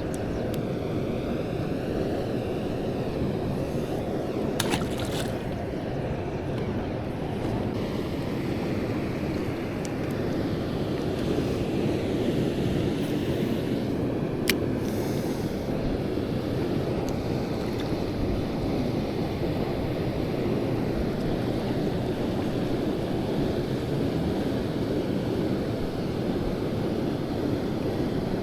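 Stream water rushing steadily, with a couple of brief sharp clicks about five and fourteen seconds in.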